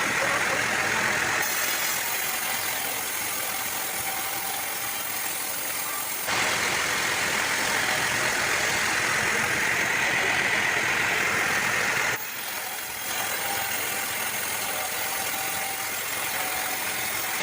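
Sawmill machinery running: a steady engine drone with a hiss over it. The sound changes abruptly about a second and a half in, around six seconds in and again around twelve seconds in.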